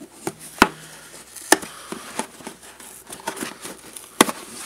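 Cardboard box being handled and pulled open by hand: three sharp cardboard knocks, about half a second in, at a second and a half, and near the end, among lighter taps, scraping and rustling.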